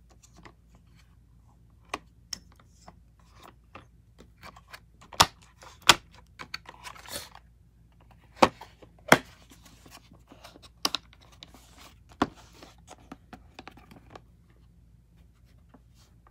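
Plastic drill bit case and cobalt drill bits being handled: a string of sharp plastic clicks and knocks as the flip-out bit holders and the case are moved, the loudest coming in two close pairs about five and eight and a half seconds in, with a brief rustle between them.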